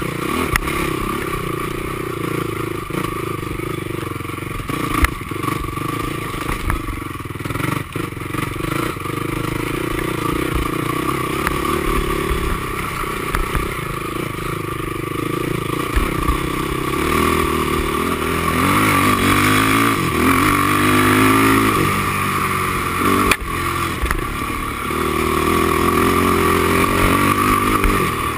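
Honda TRX450R quad's single-cylinder four-stroke engine running hard on a trail, its revs rising and falling. Clatter and a few sharp knocks come from the machine bouncing over rough ground.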